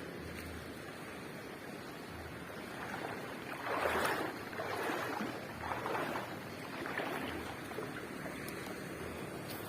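Sea surf washing on the beach: a steady wash of waves, with a louder wave breaking and running up the shore about three to four seconds in, then ebbing in a few smaller surges.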